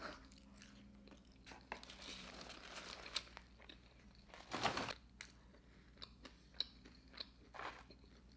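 Faint close-up chewing of a last bite of Big Mac, with soft crunching and small wet mouth clicks. Partway through there is a stretch of soft rustling, and a brief louder rustle comes about four and a half seconds in.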